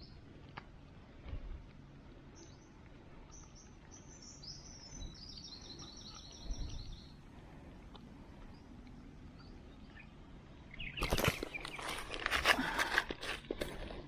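Small bird chirping in a quick repeated run around the middle. Near the end comes about three seconds of loud, rapid crackling noise.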